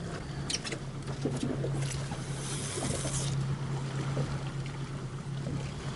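A boat engine idling with a steady low hum, with light clicks and a brief hiss a little over two seconds in.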